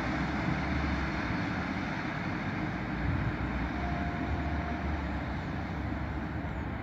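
Freight train of tank wagons rolling away along the track: a steady rumble of wheels on rails, slowly fading as it recedes.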